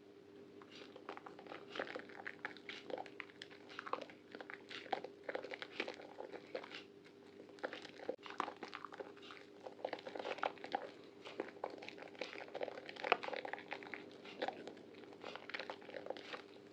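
Soaked bar of Prima Protect White soap being squeezed and lathered by hand: a dense, irregular run of soft crackles and crunches over a faint steady hum.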